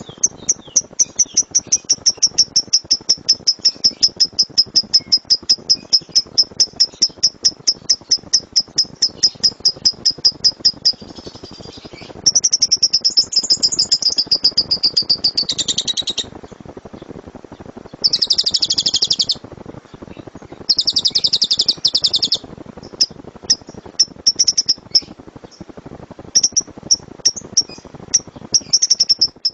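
Lovebird singing its loud 'shooting' song: a fast, even string of sharp high chirps for the first ten seconds or so, then several long rapid chattering trills of one to three seconds, with short bursts near the end.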